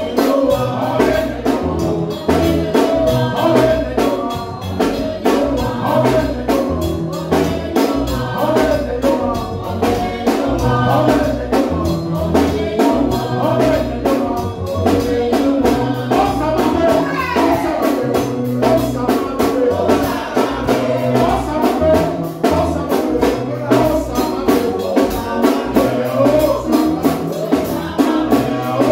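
Upbeat church praise music with singing over a repeating bass line and steady, fast percussion.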